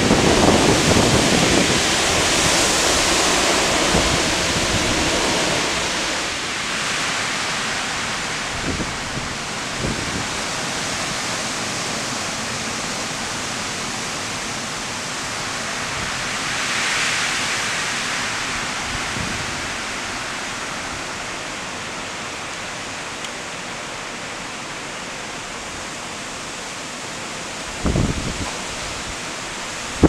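Heavy storm rain and gusting wind make a steady hiss that swells with gusts near the start and again about halfway through, with wind buffeting the microphone at the start. A brief low thump comes near the end.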